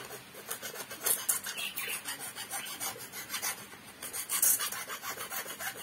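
Knife blade scraping a piece of dried coconut shell in quick, repeated rasping strokes, levelling and smoothing it.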